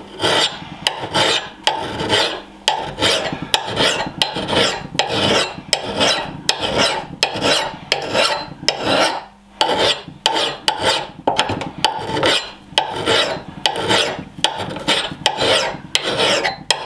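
Medium-coarse flat file rasping across the steel cheek of a Rinaldi Calabria axe head in repeated strokes, about two a second, with a short pause about nine seconds in. The file is thinning the axe's edge bevel, working close to the edge.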